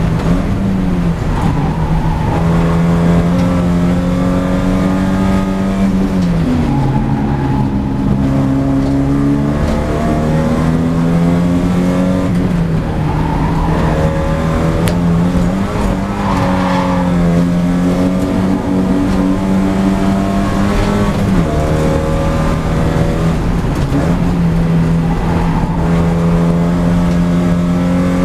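Porsche 944 Spec race car's four-cylinder engine heard loud from inside the cabin, running hard at high revs. The revs drop sharply and climb back several times through the corners.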